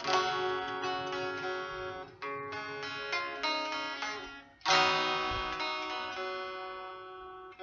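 Clean-toned Stratocaster-style electric guitar strummed in chords. A little past halfway one chord is struck hard and left to ring, fading slowly.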